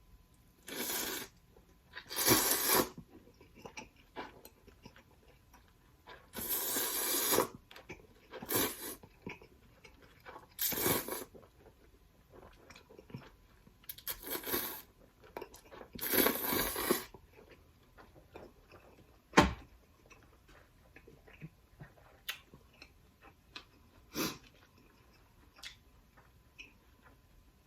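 Close-miked eating: a string of loud bites, chewing and mouth sounds in bursts of about a second, then softer smacking with a few sharp clicks.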